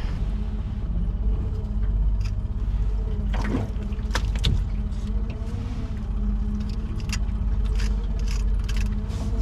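Small outboard motor running steadily at trolling speed, with scattered knocks and scrapes from a salmon being handled and cut with a knife on the aluminum boat floor.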